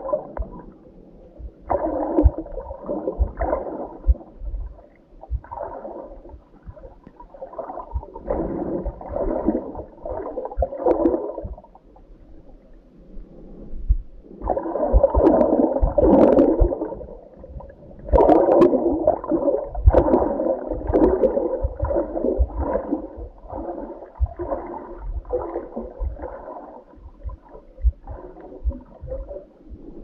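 Muffled sloshing and gurgling of sea water around a camera held underwater. It comes in irregular surges a few seconds long, with dull low knocks.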